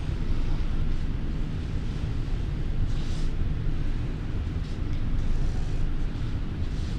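Steady low rumble of background noise, with a few faint short scratches of a felt-tip marker drawing on paper about three, five and six seconds in.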